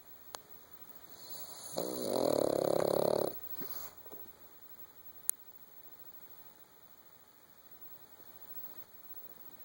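Sleeping puppy snoring: a faint rising breath, then one loud fluttering snore about two seconds in, lasting about a second and a half, followed by a few small snuffles.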